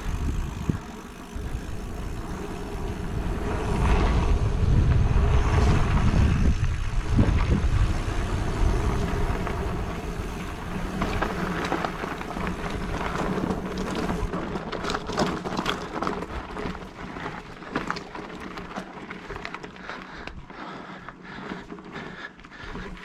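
Mountain bike riding over a dirt trail: wind rushing over the microphone, loudest in the first third, and the bike rattling and clicking over rough ground through the second half.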